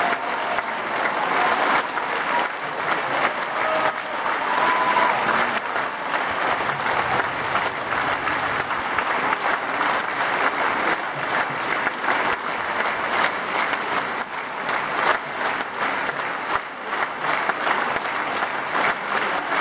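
Large theatre audience applauding: dense, continuous clapping.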